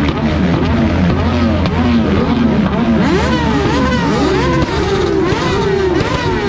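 Several motorcycle engines revved hard and repeatedly while standing still, each pitch climbing and dropping about twice a second in overlapping waves. The bikes are revved to shoot flames from their exhausts.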